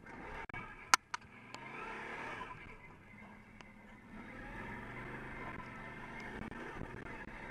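Quad bike (ATV) engine running as it is ridden over sand, getting louder about a second and a half in, dipping, then picking up again from about four seconds. A single sharp knock about a second in.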